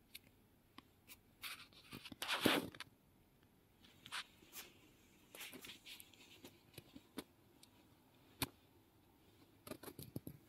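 Faint rustling, scraping and scattered clicks from the person filming moving about, with a louder rustling scrape about two seconds in and a quick run of clicks near the end.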